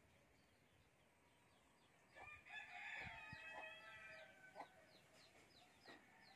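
A rooster crows once, a long held call starting about two seconds in. High, quick chirps from a small bird repeat several times a second through the second half.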